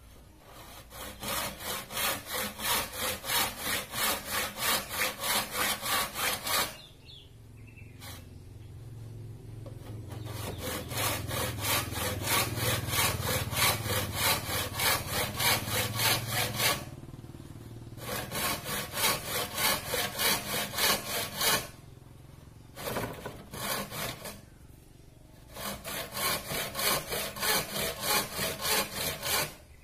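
Hand saw cutting across a bamboo pole: quick back-and-forth strokes, about three a second, in several runs with short pauses between them.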